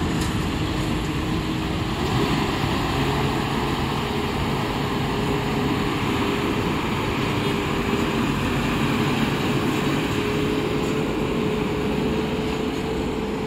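Diesel engine of a loaded box truck running under load as it pulls up a ramp, a steady drone that steps up in pitch about two seconds in and then holds.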